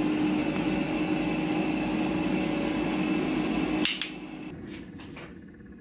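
Air fryer's fan running with a steady hum, then a click about four seconds in and the hum cuts off suddenly, followed by faint light clicks.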